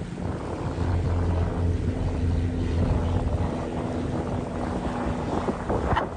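Steady low hum of a boat engine running slowly, under a low rumble of wind buffeting the microphone.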